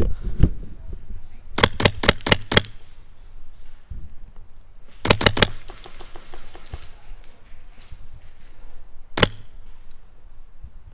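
Airsoft rifle firing BBs in short rapid bursts of sharp snapping shots. There is a run of about six shots about a second and a half in, about four more around five seconds in, and a single shot near nine seconds.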